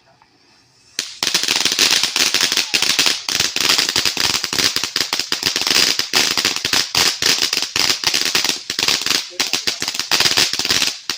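A string of firecrackers going off in a dense, rapid run of loud pops. It starts about a second in, lasts about ten seconds and cuts off abruptly near the end.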